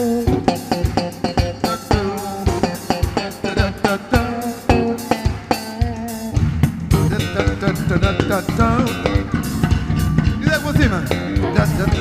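Band music: a drum kit keeps a steady beat under bass and other instruments.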